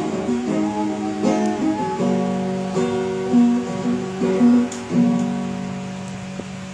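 Acoustic guitar strummed in chords, with a last chord about five seconds in left to ring and fade away as the song closes.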